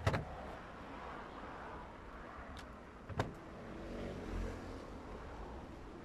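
A few sharp clicks and taps from wires and their connectors being handled, the loudest right at the start and another about three seconds in, over steady background noise. A low hum swells briefly about four seconds in.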